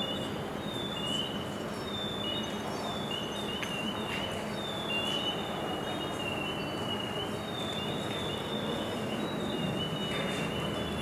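Hearing aids whistling with acoustic feedback, amplified through a microphone: a run of short, steady high-pitched whistles that step back and forth between two or three pitches, over a steady hiss.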